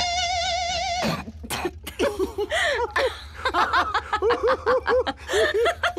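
Cartoon voices: a high note held with a strong waver for about a second, then a quick, uneven string of short high-pitched vocal sounds, several voices overlapping.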